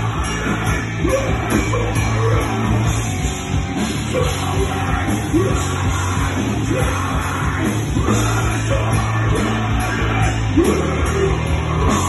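Heavy metal band playing live on a small stage: electric guitars and a drum kit going continuously.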